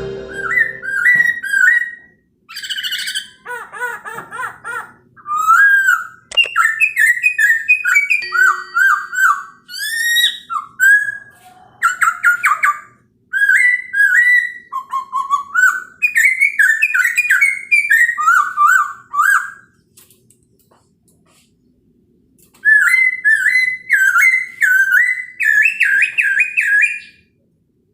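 Poksay Hongkong (black-throated laughingthrush) singing loud, varied whistled phrases with quick pitch slides and rapid warbled notes. The song breaks off for a couple of seconds about two-thirds of the way through, then starts again.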